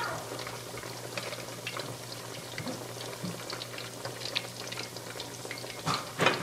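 Fish cakes deep-frying in hot oil: a steady bubbling sizzle dotted with many small pops, with a couple of louder knocks near the end.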